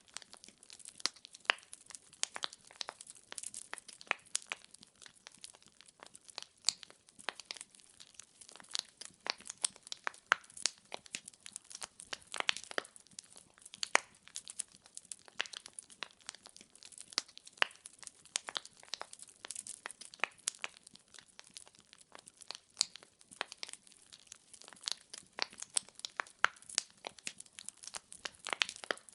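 Wood fire burning in a fireplace, its logs crackling with frequent irregular sharp pops and snaps over a faint hiss.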